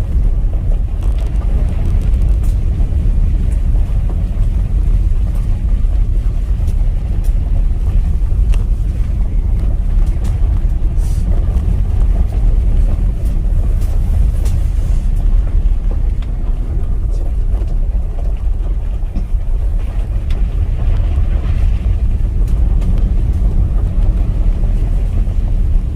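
Tesla driving on a gravel road: a steady low rumble of tyres rolling over gravel, with scattered small ticks.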